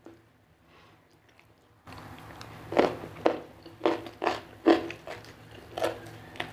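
Close-miked chewing of crunchy food, loud crisp crunches about twice a second, starting about two seconds in.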